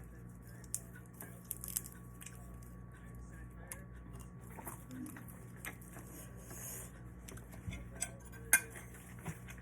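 Quiet eating sounds: scattered light clinks of cutlery and dishes with chewing, one sharper clink about eight and a half seconds in, over a faint steady hum.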